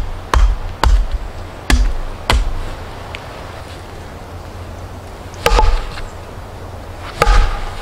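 Wood being struck with a hatchet: four sharp chops about half a second apart at the start, a pause, then two heavier knocks with a short ringing tone near the end.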